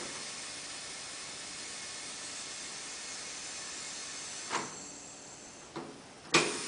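Bright LC885 automatic tyre changer's pneumatics hissing steadily with compressed air as a pedal function is worked. A sharp clack comes about four and a half seconds in, a lighter knock follows, and a loud clunk comes just before the end.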